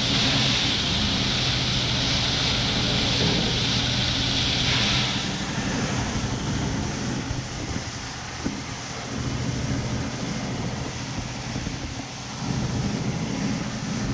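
A motorboat engine running steadily with a low hum. A hiss over it cuts off about five seconds in, and the engine grows louder again near the end.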